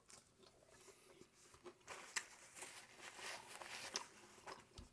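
Faint chewing of a cheese quesadilla, small irregular crunches and clicks of the crisp tortilla and mouth sounds close to the mic.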